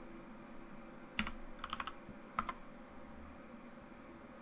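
Keys clicking on a computer keyboard as a number is typed in: a few quick keystrokes in small groups, between about one and two and a half seconds in.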